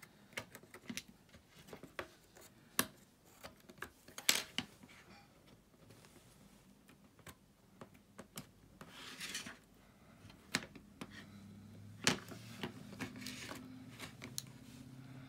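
Plastic pry tool and fingers working the display off an iPhone 6s: scraping and many sharp clicks, with a longer scrape about nine seconds in as the screen is lifted from its frame.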